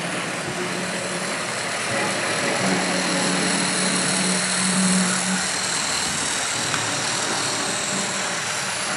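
Model train running on the track: the locomotive's small electric motor and the wheels on the rails make a steady whirring hum. It grows louder about three seconds in as the locomotive passes close, then eases off.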